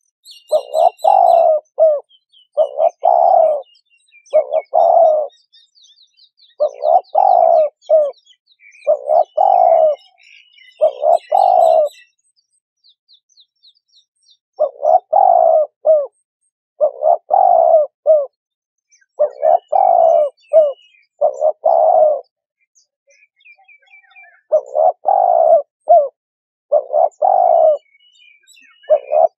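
Spotted dove cooing: the same low cooing phrase repeats about every two seconds, with a brief pause twice. Faint chirps of small birds sound in the background.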